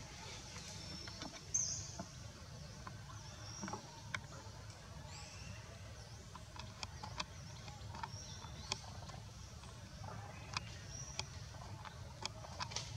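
Short, high, thin squeaks repeated every second or so, mixed with scattered sharp clicks, over a steady low hum.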